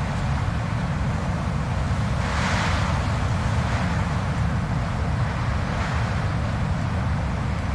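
Blizzard wind blowing, a steady deep rumble with gusts that swell into a hiss about two and a half seconds in and again near six seconds.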